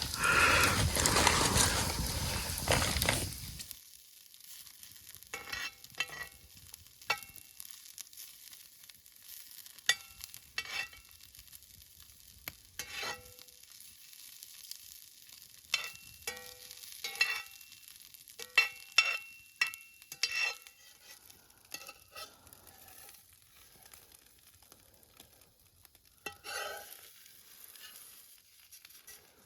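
Steaks sizzling over a campfire, loudly for the first few seconds. Then a quieter stretch of scattered short pops and crackles.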